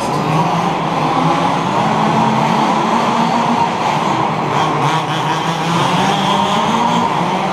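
Several 1/5-scale petrol RC buggies racing, their small two-stroke engines buzzing together. The pitches of the different engines shift up and down a little as they accelerate and back off.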